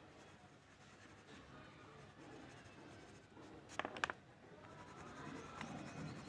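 Faint brush strokes of paint on paper, with a quick cluster of small sharp clicks about four seconds in.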